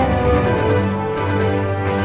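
Intro theme music with sustained notes, changing chord at the start.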